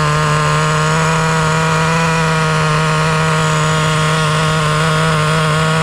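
Traxxas T-Maxx's small nitro engine idling steadily at an even pitch while its fuel mixture is being tuned; the owner feels it is running too lean.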